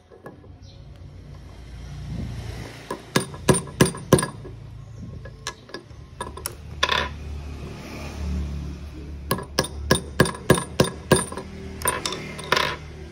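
Small hammer tapping a hex key used as a punch to drive the steel retaining pin out of a hand-operated copper-tube flaring tool: sharp metallic taps, a cluster of about four, a single one, then a quick run of taps.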